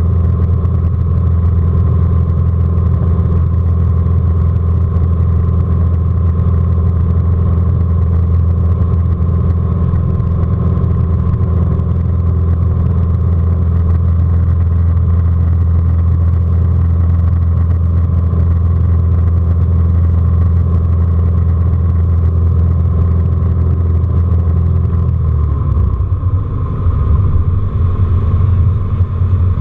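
Socata Rallye 235's six-cylinder 235 hp flat (boxer) piston engine and propeller running steadily, heard from inside the cockpit. About 25 seconds in the engine note drops in pitch as power is pulled back.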